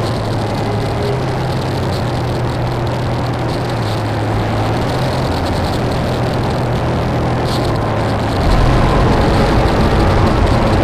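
Dark ambient power-electronics noise music: a dense wall of hiss and distorted noise over a steady low drone. A heavier, deeper rumble comes in about eight and a half seconds in, and the whole gets louder.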